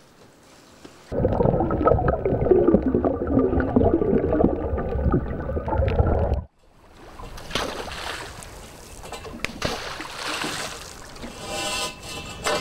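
Underwater sound among fish in a net: loud dense rumble and bubbling with a thin, slightly wavering whine above it, starting about a second in and cutting off abruptly past the halfway point. It gives way to wind and water around an open boat on the lagoon.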